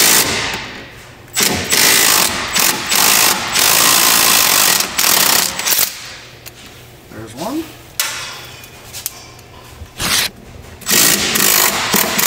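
Socket ratchet clicking in repeated bursts as it backs out the 15 mm bolts holding the master cylinder to the brake booster. There is a quieter pause in the middle before the clicking resumes near the end.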